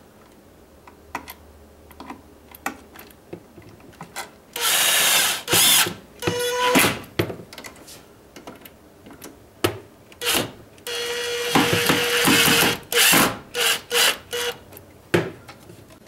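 Cordless drill-driver driving receptacle mounting screws into the electrical box, run in spurts: two longer runs about five and eleven seconds in, with shorter pulses and small clicks and taps between.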